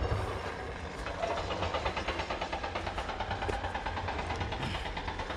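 Steady low rumble of wind on the microphone while moving along a rocky trail, with a fast, even pulsing running through it.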